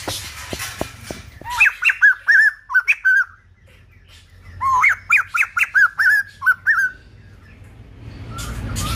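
White-crested laughingthrush calling in two bursts of quick, hooked whistled notes, each lasting about two seconds, with a short pause between.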